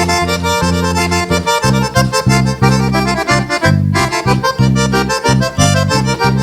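Sertanejo band playing the instrumental close of a song: a lead melody over a bass line pulsing several times a second, with no singing.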